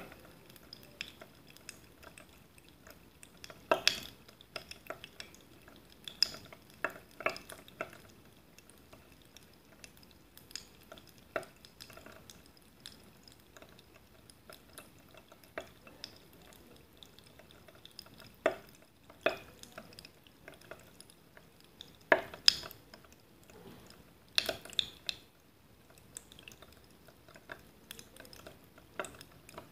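Scattered small clicks and light glassy ticks from a glass mug of water, irregular and spaced out, with a few louder ones about 4, 18, 22 and 25 seconds in.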